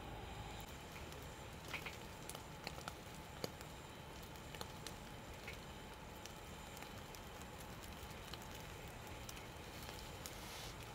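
Wood fire crackling faintly: scattered sharp pops at irregular intervals over a steady low hiss.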